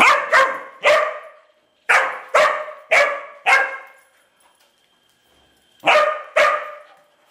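A dog barking at a turtle: nine short, sharp barks in three bursts, three, then four, then two after a pause of about two seconds.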